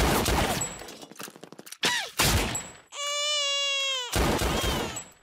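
Rapid pistol fire from a cartoon sound track: several bursts of quick shots, the first the loudest. A long, high-pitched cry is held for about a second in the middle.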